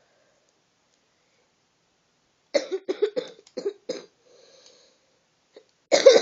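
A person coughing in a fit: about six quick, harsh coughs, a faint breath in, then another loud burst of coughing near the end.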